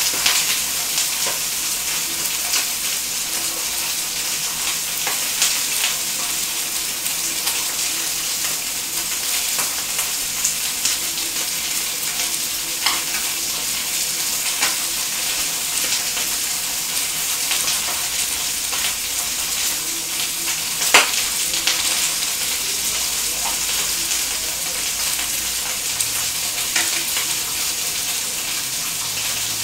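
Chicken thighs frying skin side down in a pan: a steady sizzle of hot chicken fat with scattered crackles and pops. One sharp click a little past two-thirds of the way through.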